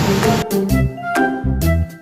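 Background music with a melody and bass notes. A steady rushing noise lies under it for about the first half second, then drops out and the music plays alone.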